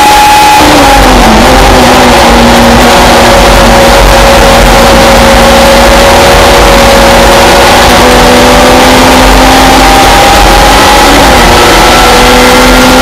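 Simca racing saloon's engine under race load, heard from inside the cockpit. Very loud throughout. Its pitch drops sharply about a second in as the car slows for a corner, then it holds high revs and slowly climbs, with a brief dip near the end.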